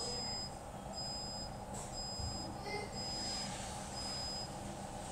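Refrigerator door-open alarm beeping: five high-pitched beeps, each about half a second long, about one a second, the sign of a fridge door left open. A steady low hum runs underneath.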